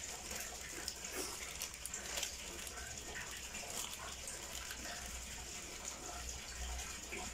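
A lidded pot of beef sinigang simmering on a gas stove burner: a steady watery hiss with small scattered ticks.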